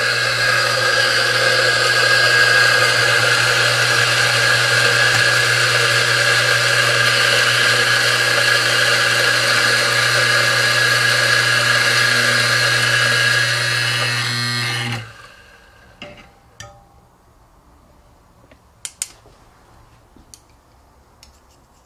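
Mazzer Mini E doserless coffee grinder running steadily as it grinds beans into a portafilter, its motor stopping abruptly about two-thirds of the way through. A few light taps and clicks follow.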